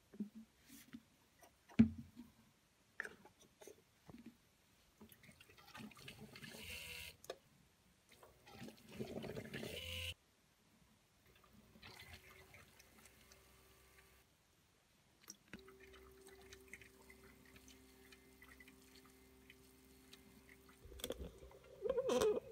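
Liquid coolant poured from a bottle into a water-cooling loop's reservoir, splashing and gurgling in two stretches, with light clicks of handling. Past the middle a steady low hum sets in, the loop's pump running, with a brief louder knock of handling near the end.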